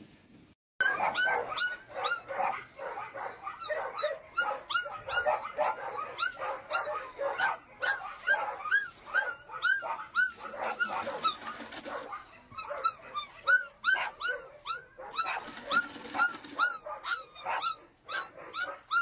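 Dogs barking and yelping: a dense run of short, high barks several times a second that starts abruptly about a second in, eases briefly near the two-thirds mark, then picks up again.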